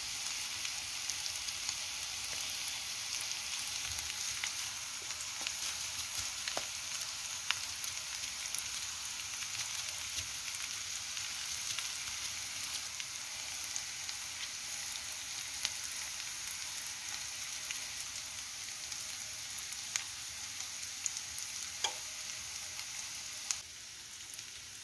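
Carrots, onion and pieces of pork fat sizzling steadily in a frying pan, a high hiss of hot fat with scattered crackles and pops. The sizzle drops a little quieter near the end.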